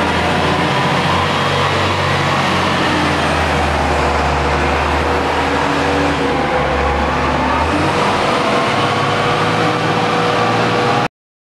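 Heavy diesel tunnelling machinery running steadily inside a tunnel, a low engine hum under a dense mechanical din. It cuts off suddenly near the end.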